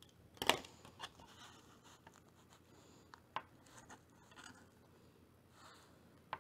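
One sharp snip of small craft scissors about half a second in, then quiet rustling and rubbing of paper under fingertips, with a few light clicks, as a small piece is pressed onto a paper notebook.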